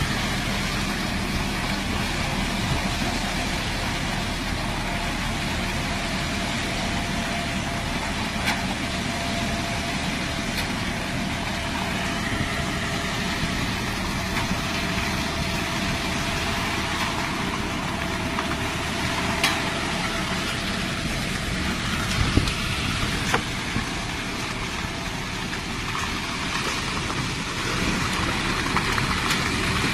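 Engine of an HMC350 self-loading concrete mixer running steadily, with a few short sharp knocks here and there.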